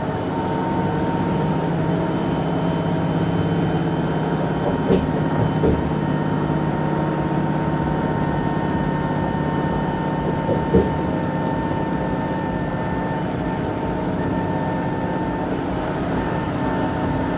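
Interior running noise of a moving electric train: a steady rumble of wheels on rail with a constant motor hum, and a few brief knocks around 5 and 11 seconds in.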